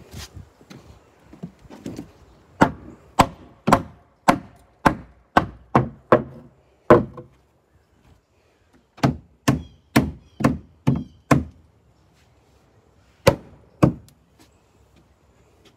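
Hammer driving nails into a new wooden step tread: two runs of sharp strikes at about two a second, then two more blows near the end.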